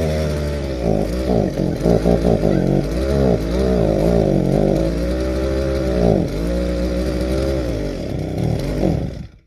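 Small pull-start petrol engine fitted to a BMX frame, running and being revved up and down with the throttle in repeated swells. The sound cuts off suddenly near the end.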